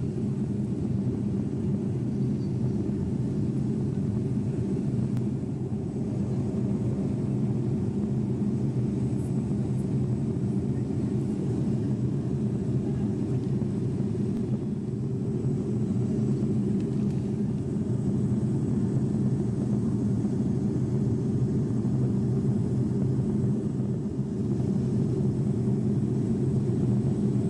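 Steady low drone of an airliner in flight, engines and airflow heard from inside the cabin through a mobile phone's microphone, with several steady low hums in it.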